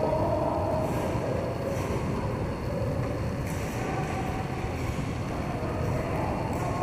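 Reverberant hall ambience of a roller hockey game: a steady rumble of skate wheels rolling on the court, with faint distant shouts and a few light clicks of sticks and ball.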